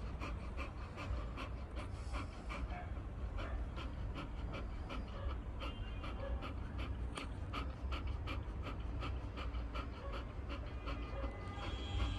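Bull terrier panting: quick, even breaths going on steadily.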